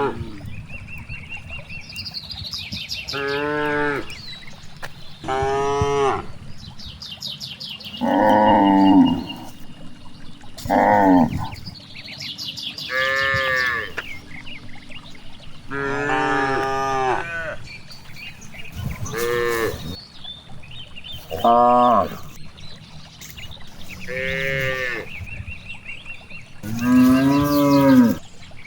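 Cows mooing again and again, about ten calls of roughly a second each, some bending up and down in pitch, with faint high chirping between them.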